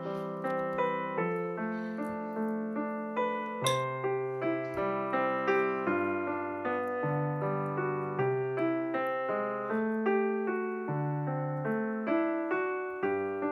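Background piano music: a steady run of notes, about two a second, over held bass notes.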